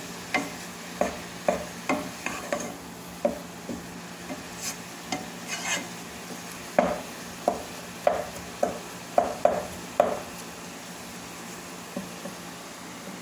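Wooden spatula stirring ground chicken in a nonstick saucepan: irregular scrapes and knocks against the pan, about two a second, loudest a little past the middle and dying away near the end, over a faint sizzle from the pan on the gas flame.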